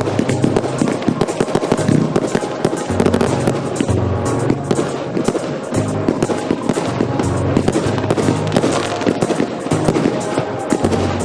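Fireworks going off in a dense, continuous barrage of rapid cracks and pops. Music with a bass line plays underneath.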